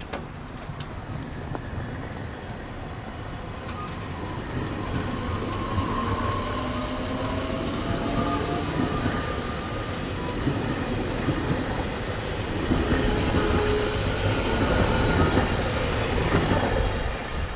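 JR Hokkaido 733 series electric train running through the station, its motors whining with a slowly rising pitch over a heavy rumble of wheels on rail, growing louder near the end.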